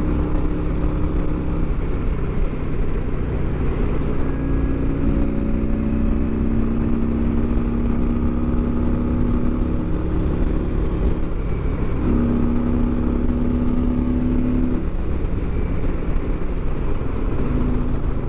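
Harley-Davidson Ultra Limited's Milwaukee-Eight 114 V-twin running at open throttle as the heavy touring bike accelerates up to speed. The engine is under hard load, and its note shifts in pitch a few times.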